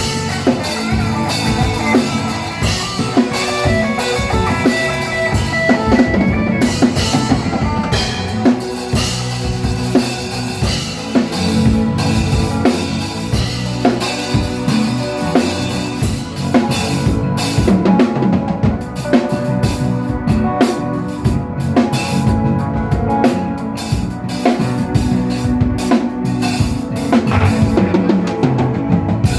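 Music with a drum kit beating out a steady rhythm of kick and snare hits over sustained pitched instruments.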